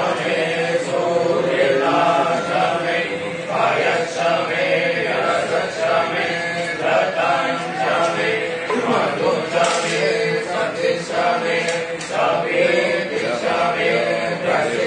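Voices chanting Hindu mantras in a continuous, melodic chant.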